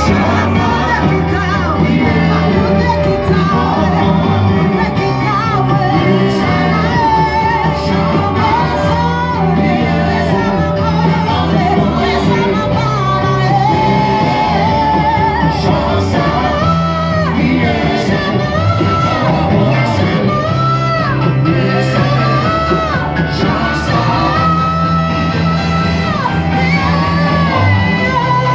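Church worship music: loud singing over a band, with a steady bass line of held notes, ringing in a large hall.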